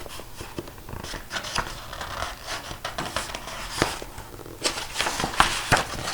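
Paper pages of a picture book being handled and turned: crinkling and rustling with irregular sharp clicks, busiest in the second half.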